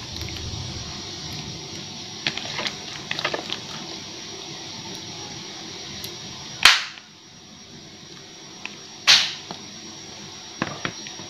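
Pieces of squirrel meat dropped by hand into a pot of hot water: a few light clicks and plops, then two loud splashes about two and a half seconds apart, over a steady hiss.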